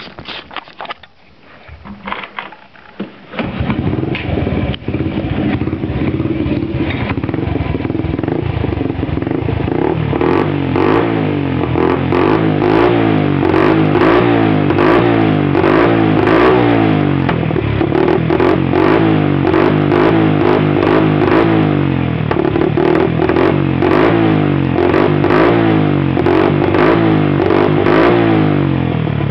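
Honda 90's small single-cylinder four-stroke engine through a Big Gun Evo Mini aftermarket exhaust, catching about three seconds in, then running and being revved up and down repeatedly.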